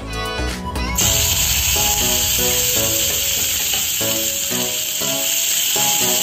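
Chopped garlic and red onion sizzling in hot cooking oil in a frying pan, a steady hiss that starts abruptly about a second in as they go into the oil for sautéing. Background music with a beat plays throughout.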